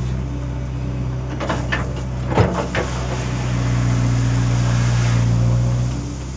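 JCB excavator's diesel engine running steadily, with a few sharp knocks about one and a half to three seconds in, the loudest about two and a half seconds in. The engine sound drops off near the end.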